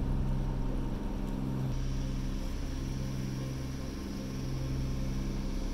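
Sailboat's engine running steadily under way, a low even drone with a slight change in tone about two seconds in.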